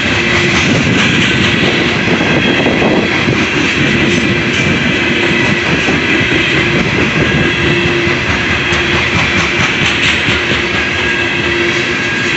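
Loaded coal cars of a CSX freight train rolling past close by: a steady rumble of steel wheels on the rails, with a low tone that comes and goes every few seconds.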